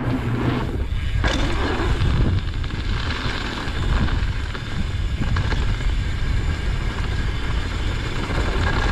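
Downhill mountain bike rolling down a dirt trail, heard from a helmet camera: a steady rumble of wind on the microphone and tyres on dirt and gravel, with small clicks and rattles from the bike.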